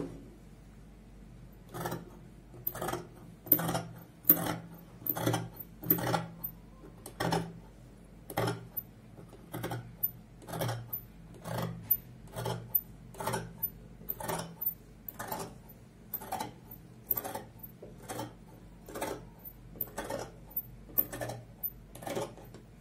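Large dressmaking shears cutting through fabric laid on a table: the blades close in a steady run of snips, a little more than one a second, starting about two seconds in.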